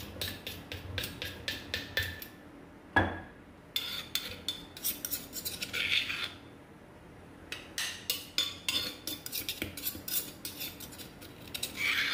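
A metal spoon scraping and clicking against the inside of a clay mortar, scooping out crushed garlic, with one louder knock about three seconds in.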